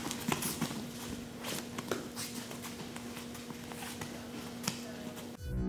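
Bare feet stepping and shuffling on training mats, with scattered soft taps and a steady low hum. Electronic music starts abruptly near the end.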